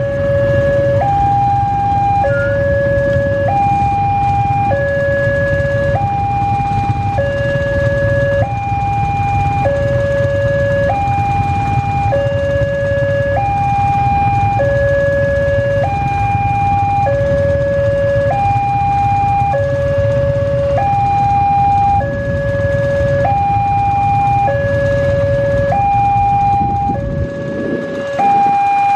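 Railway level-crossing warning alarm sounding a steady two-tone cycle, a low tone and a high tone alternating, each held about a second. It signals that the barrier is down and a train is approaching. Underneath, the engines of waiting motorcycles idle with a low rumble that drops away near the end.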